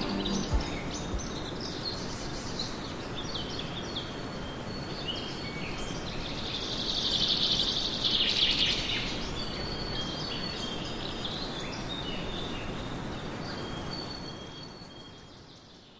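Woodland birdsong: several small birds calling and singing in short high phrases over a steady background hiss of outdoor ambience, with a dense, rapid trill about seven seconds in. Fades out at the end.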